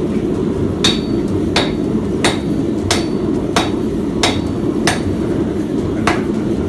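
Hand hammer forging steel on an anvil: about nine evenly spaced blows, roughly one and a half a second, some with a short metallic ring. A steady low rumble runs underneath.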